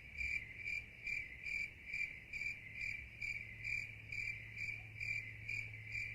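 A cricket chirping steadily, about two and a half even chirps a second, over a faint low hum.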